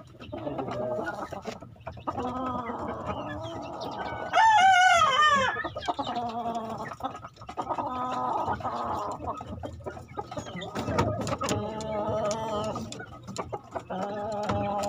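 Roosters crowing and clucking again and again, with one loud, long crow that swoops up and down in pitch about four seconds in.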